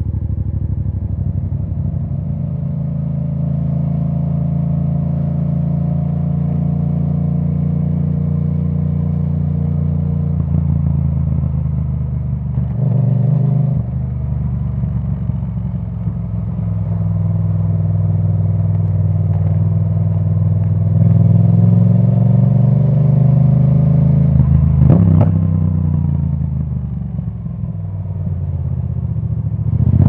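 Yamaha MT-07's 689 cc parallel-twin engine running at low revs through a straight-through Akrapovic titanium exhaust with its dB killer removed, the pitch rising and falling slowly. One sharp crack comes about 25 seconds in, as the revs start to drop.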